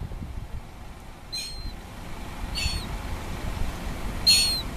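Gulls calling: three short, high calls spaced about a second and a half apart, over a steady low rumble.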